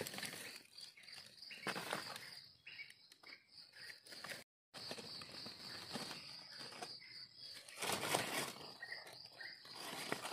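A steady high-pitched insect drone, with dry leaf litter and soil rustling in bursts as mushrooms are dug out by hand. The sound cuts out for a moment about halfway through.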